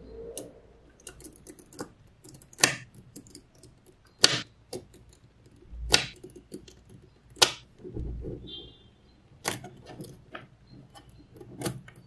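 Small magnetic balls snapping together with a sharp click every second or two, with fainter ticking and rattling of the balls between.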